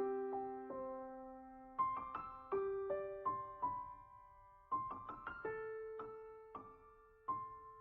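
Solo piano music: a slow, gentle melody of single struck notes and small chords, each note ringing out and fading before the next.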